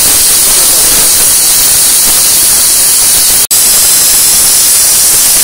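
Aluminium pressure cooker venting steam through its weight valve: a loud, steady hiss of its whistle at full pressure as the beef cooks. It cuts out for an instant about three and a half seconds in.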